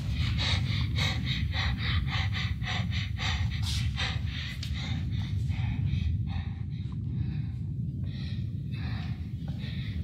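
A girl's rapid, heavy breathing close to the microphone, about three breaths a second, slowing after about five seconds: panicked breathing while hiding. A steady low rumble runs underneath.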